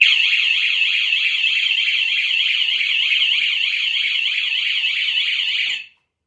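Wi-Fi home alarm siren set off by its panic function, sounding a deafening racket: a loud electronic wail warbling up and down about four times a second. It cuts off suddenly near the end when the siren is unplugged, as it has no internal battery fitted.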